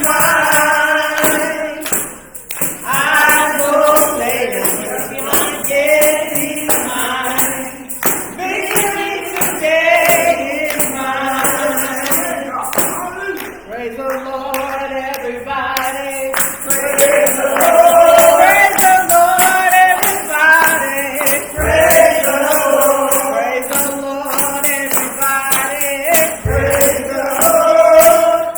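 Gospel singing by a group of voices, with a tambourine shaken in a steady beat.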